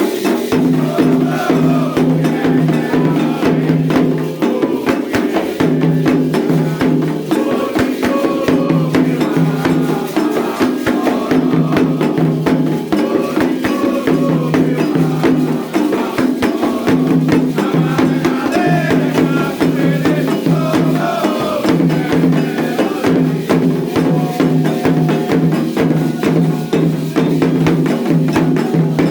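Candomblé ritual music for Xangô: drums repeating a steady low rhythm, with sharp struck percussion, a rattle and voices singing over it.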